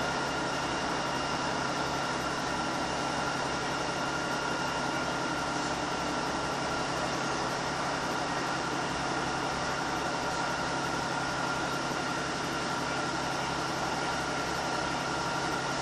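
Steady drone of a Class 150 Sprinter diesel multiple unit's underfloor Cummins diesel engine, heard from inside the passenger saloon, with a steady high whine over a low throb.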